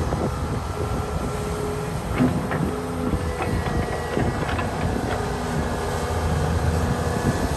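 Heavy construction machinery, a Volvo excavator working at soil loading, runs steadily with a low diesel rumble. A few metallic knocks and thin squealing tones come over it partway through.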